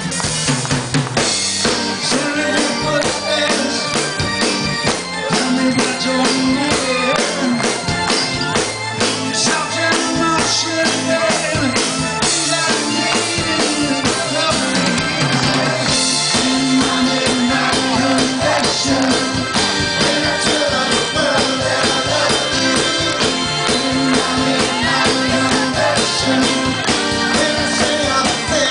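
Live rock band playing: drum kit, electric bass and electric guitar, with a male lead vocal.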